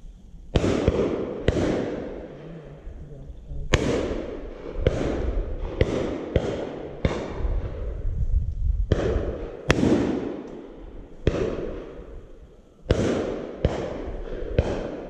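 Shotguns on a driven game shoot firing a steady run of about fifteen shots, singles and quick doubles. Each is a sharp bang with an echo that trails off over about a second.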